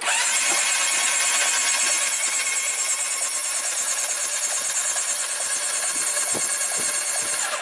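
Electric starter cranking a Yamaha Diversion's four-cylinder engine over steadily with both ignition coils disconnected, so it turns over without firing.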